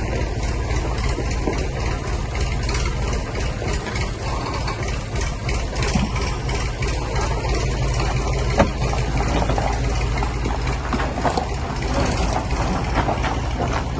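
A motor vehicle's engine running steadily, with a few faint clicks over it.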